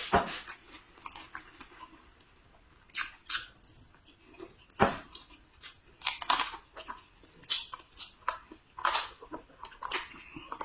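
A person chewing and biting food close to the microphone: irregular wet smacks and crunches, some louder bites about five seconds in.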